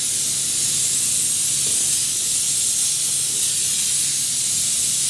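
Handheld steam cleaner jetting steam with a steady, loud hiss while its trigger is held down.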